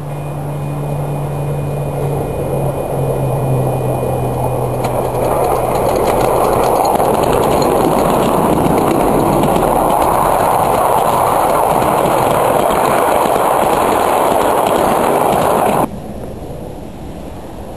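Miniature ride-on railway train running close by over rail joints: a steady low hum as it draws near, then a dense, loud rush of wheels clicking and clacking over the joints as the carriages pass. The sound drops off sharply about sixteen seconds in.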